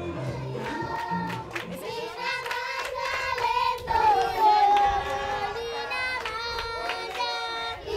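Background music in about the first second and a half, giving way to a group of schoolchildren singing together.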